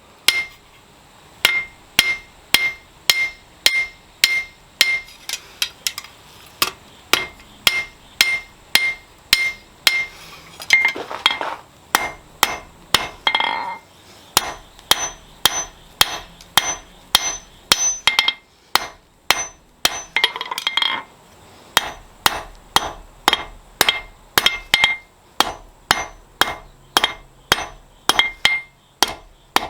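Blacksmith's hand hammer forging steel on an anvil, striking at a steady rhythm of about two blows a second, many blows followed by a high ring from the anvil.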